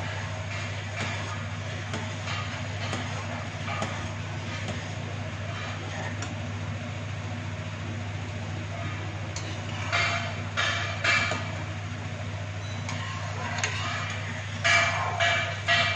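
A steady low mechanical hum, like a small motor running, with short, louder clattering sounds about ten seconds in and again near the end.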